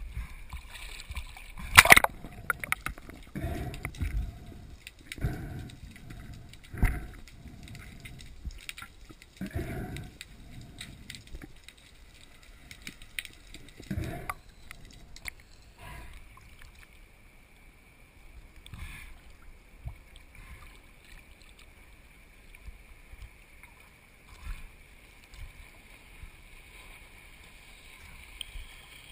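Sea water sloshing and gurgling around a diver's waterproof camera at the surface, in irregular surges with a few sharp knocks. About twelve seconds in it turns much quieter as the camera goes under water, with a faint steady high hum.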